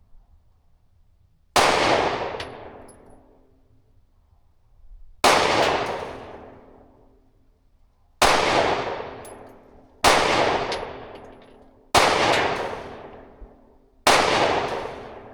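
Six single 9mm shots from a Glock 43X pistol, fired slowly a few seconds apart, each with a fading ring after the crack.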